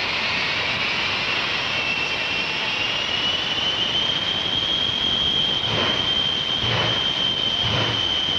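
The Shockwave jet truck's three Pratt & Whitney J34 turbojets running with afterburners lit: a high whine climbs in pitch over the first few seconds, then holds steady over a loud rushing noise. Near the end, three deep bursts come about a second apart.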